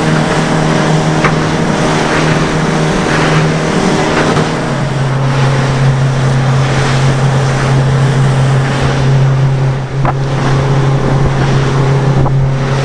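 Bar Crusher boat's engine running steadily under way, its note dropping a little about four and a half seconds in, over the rush of wind and water.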